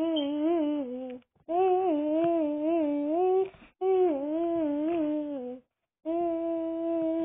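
A child's voice humming a wordless tune in three repeated wavering phrases, then holding one long steady note near the end.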